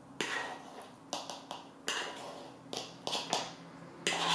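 A hand tapping the bottom of an upturned plastic mixing bowl, about eight uneven knocks, to shake a thick cracker-and-egg paste down into a Rollie vertical egg cooker.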